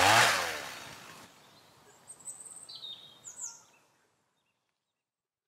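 Intro sound effects: a loud whoosh with a falling pitch that fades out over about a second, then a few short high bird chirps about two seconds in.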